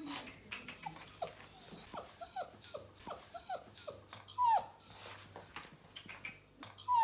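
Bernese Mountain Dog puppy whimpering: a run of about a dozen short whines, each falling in pitch, that eases off about five seconds in.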